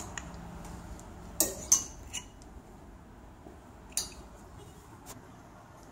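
A few sharp clinks and clacks of hangers knocking against a metal clothes rail, the two loudest close together about a second and a half in, then fainter ones a couple of seconds apart.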